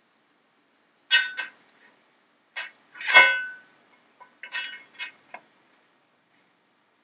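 A perforated metal skimmer clinking against a wok: a scattered series of about eight sharp metallic taps, the loudest about three seconds in with a brief ring.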